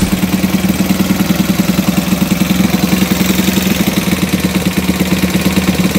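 Alpha moped's single-cylinder four-stroke engine idling with fast, even pulses. The valves are knocking, a sign that the valve clearance needs adjusting.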